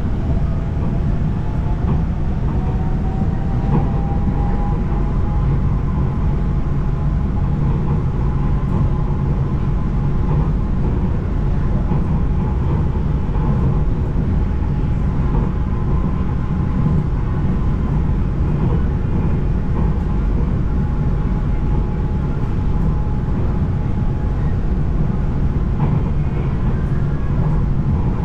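Bangkok MRT Yellow Line monorail train running, heard from inside the car: a steady low rumble with a whine that rises in pitch over the first few seconds, then holds steady.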